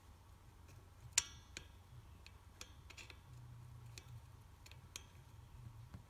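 Small metal clicks and taps of a VW Type 2 sliding-door hinge's parts being handled as its spring cam is fitted on, with the sharpest click about a second in and a few lighter ones after. A faint low hum runs underneath.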